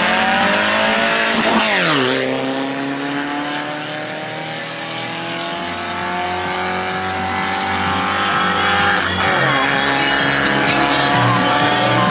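Race car engine accelerating hard, its pitch climbing steadily and dropping sharply at upshifts, once about two seconds in and again about nine seconds in.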